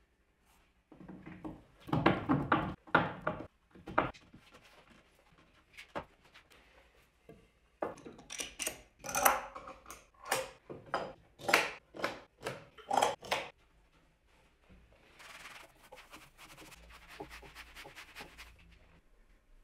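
Ash boards being laid together and bar clamps set across the glued-up panel: a run of sharp wood and metal knocks and clanks. Near the end comes a steady rubbing as a damp sponge wipes glue squeeze-out along the joints.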